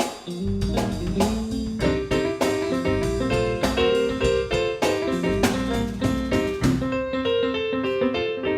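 A rhythm-and-blues band playing an instrumental passage with no vocals: keyboard chords to the fore over bass and a drum kit. The cymbals drop out for the last second or so.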